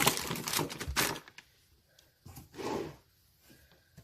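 Small plastic containers and packaging from a slime kit being handled: a quick cluster of light clicks and rustling in the first second, then a soft brushing sound near the middle and a few faint ticks.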